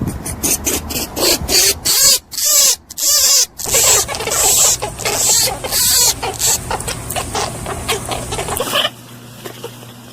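Rabbit making a rapid series of short squeaks and grunts, busiest in the first two-thirds and quieter from near the end.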